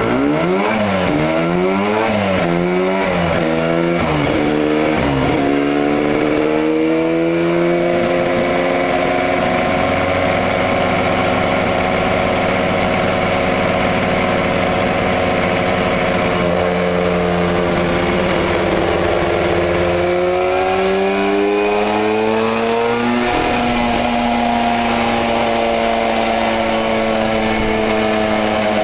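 Suzuki GT250 X7's two-stroke parallel-twin engine driving its rear wheel on a rolling-road dyno roller for a power health check. It opens with a few quick revs up and down, then climbs slowly in pitch under load and eases back. It rises again, drops sharply about 23 seconds in, and runs at a steadier pitch after that.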